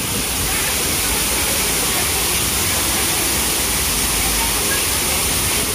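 Garden fountain: a sheet of water pouring over a stone ledge into a pool, a steady splashing with no breaks.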